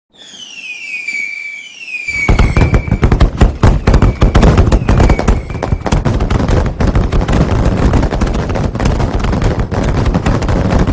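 Fireworks going off: a few whistles falling in pitch, then from about two seconds in a dense, rapid run of crackling bangs.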